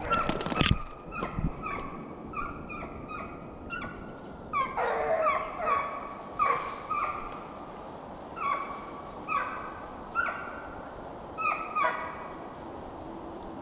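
A pack of deer hounds giving mouth while running a deer: a steady string of short barks, about two a second, with several dogs overlapping around five seconds in. The barking stops shortly before the end.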